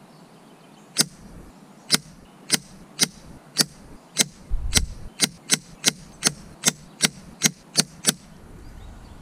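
Sped-up string of about seventeen air-rifle shots, sharp cracks coming two to three a second like a machine gun, from an FX Impact M3 PCP air rifle firing .177 JSB Knockout slugs.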